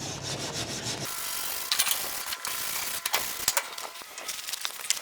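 MIG welder arc on steel sizzling and crackling in irregular bursts, starting about a second in.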